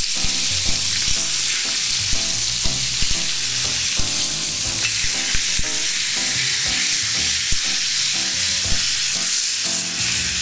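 Bone-in steak and onions frying in a hot cast-iron grill pan with a steady sizzle, and scattered clicks of metal tongs against the pan as the meat is turned and pressed.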